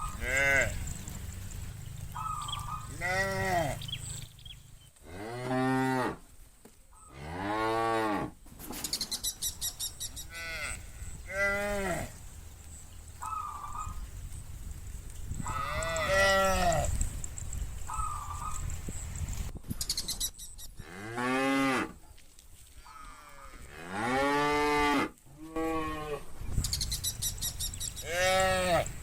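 Cattle mooing: about nine long calls from the herd, one after another, each rising and then falling in pitch. The uploader takes them for bulls calling the herd back to the pen.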